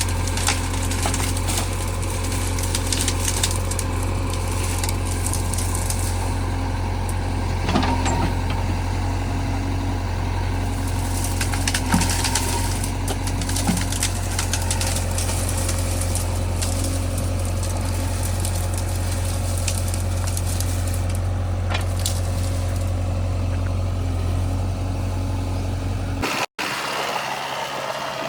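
Heavy diesel machine engine running steadily, with a few short knocks in the middle. The drone breaks off abruptly about two seconds before the end.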